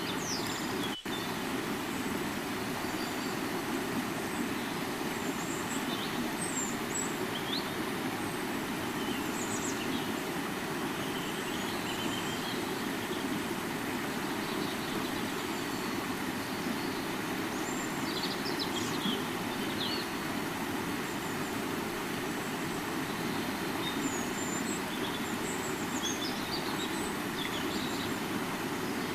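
River water flowing in a steady, even rush, with short high chirps now and then above it. The sound drops out briefly about a second in.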